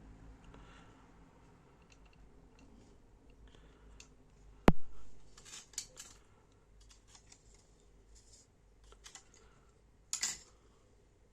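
Scattered small clicks and rustles of handling, with one sharp, loud click a little under five seconds in and a short burst of clicks near the end.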